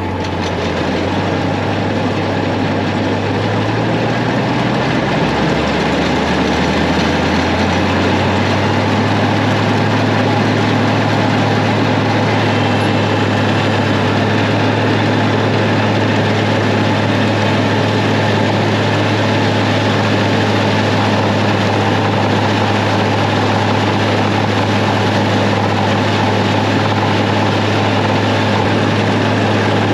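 International Harvester 856 tractor and New Holland 36 pull-behind forage chopper running while chopping alfalfa. The engine's pitch rises over the first several seconds as it comes up to speed, then holds steady under the whir of the chopper.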